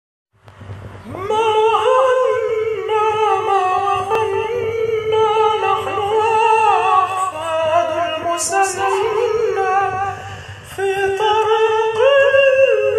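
A man singing an Arabic nasheed in a full, sustained voice with sliding, ornamented notes, starting about half a second in.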